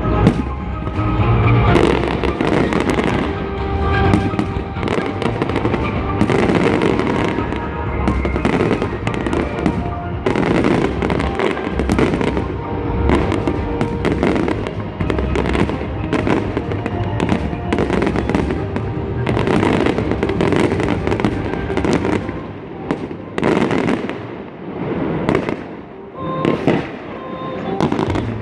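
Fireworks going off in a rapid, continuous run of bangs and crackles, thinning out a little near the end.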